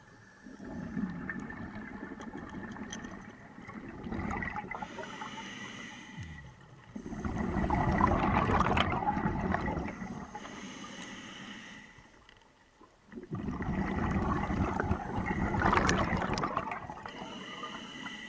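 Scuba diver breathing through a regulator underwater. Hissing inhalations with a steady whistle-like tone alternate with rushes of exhaled bubbles; the two longest and loudest bubble rushes come about 7 and 13 seconds in, each lasting about three seconds.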